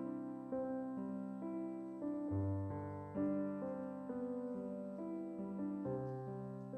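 Soft, slow keyboard music, held piano chords changing about once a second, each struck and left to fade.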